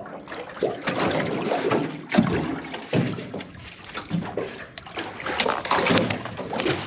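Irregular knocks and rustling as freediving gear (mask, hood and fins) is handled and pulled on aboard a small boat.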